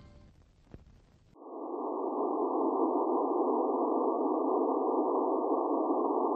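The tail of the logo's music fades out into a brief lull with a single small click. About a second and a half in, a steady, muffled background drone starts and holds unchanged.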